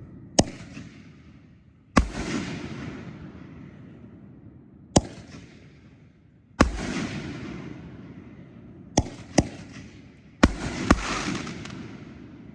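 4-inch canister firework shells (Happy Family Magnum shells) firing in the sky: eight sharp booms, with a close pair near the end, several trailing off in a long fading rumble.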